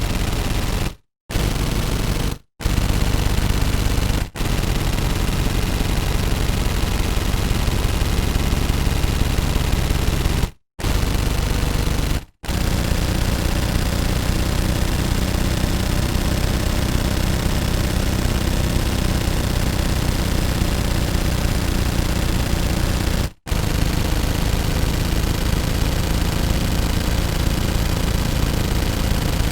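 Automatic gunfire: long sustained bursts of rapid shots, broken by six brief pauses. Some bursts last only a second or two; the longest runs for about ten seconds.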